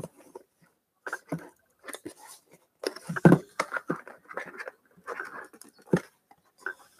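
Hands opening and handling a trading card pack and its cards: irregular rustles, taps and scrapes.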